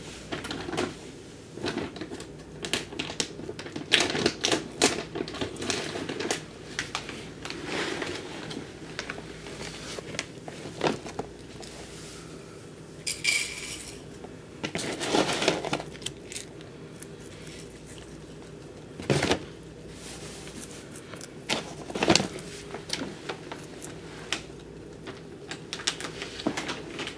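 Guinea pig crunching and chewing raw carrot: irregular crisp clicks of biting and grinding, coming in bursts with short pauses between.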